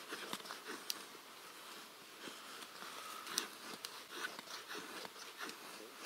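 Victorinox Trailmaster knife blade shaving a thin spruce twig: quiet, dry scraping strokes, about two or three a second, as curls of wood come off.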